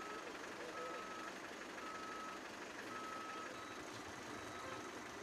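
Vehicle reversing alarm beeping about once a second, each beep a single steady half-second tone, over steady outdoor background noise.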